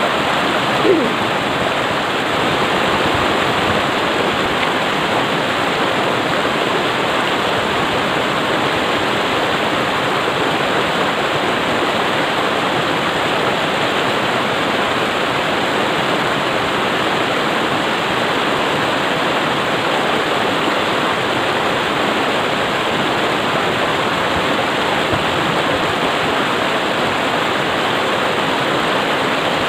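Shallow rocky river rushing steadily through whitewater rapids over boulders. A short rising sound stands out about a second in.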